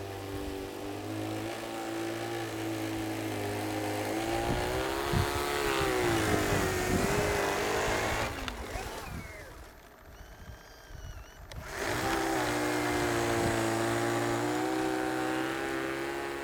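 Prototype single-stage R/C snow blower's motor running with a whining tone whose pitch wavers as it drives and throws snow. The sound drops away for about two seconds near the middle, then picks up again.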